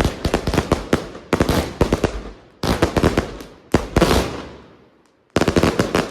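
Nico Angry Rabbits 32-shot Category 1 firework cake firing shot after shot, each shot bursting into dense crackling that fades out over about a second. A short lull comes near the end before another crackling volley.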